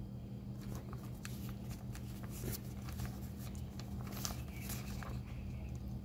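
Paper catalogue pages rustling and crackling as they are handled and turned, busiest in the middle, over a steady low hum.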